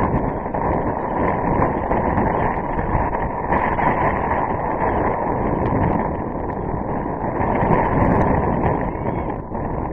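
Wind blowing across the camera microphone: a loud, steady rushing noise that rises and falls slightly.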